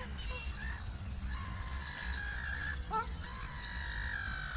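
Several songbirds calling at once: quick high chirps overlapping with longer, held whistled notes through the middle, over a steady low background rumble.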